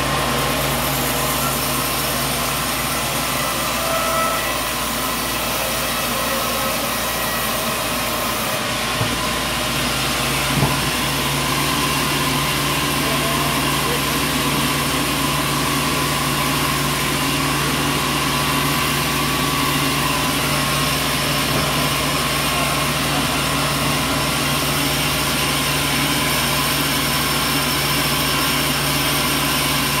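Band sawmill running steadily with a constant mechanical drone. About nine and eleven seconds in there are two short knocks, after which a low hum grows stronger.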